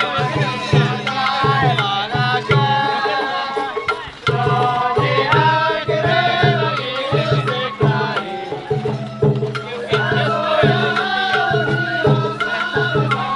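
Sawara-bayashi festival music from a float's musicians: taiko drums keep a steady beat under a wavering melody on the shinobue bamboo flute.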